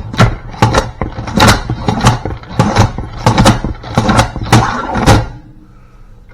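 A pump-action salad spinner being pumped hard, its plunger driving the basket round with wet spinach inside, about two strokes a second. The pumping stops about five seconds in.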